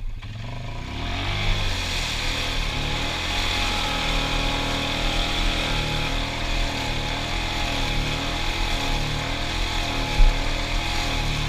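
Suzuki KingQuad ATV engine revving up and down as the quad churns through deep mud, wheels spinning and throwing mud. A single sharp thump comes about ten seconds in.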